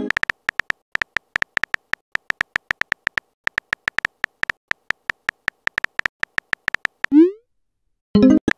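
Texting-app keyboard sound effects: a fast, irregular run of short electronic typing ticks as a message is typed. About seven seconds in comes a short rising bloop as the message is sent, then a brief burst of tones near the end.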